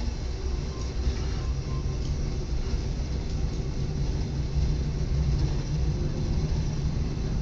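Steady low roar of a glassworks furnace, an unbroken rumble.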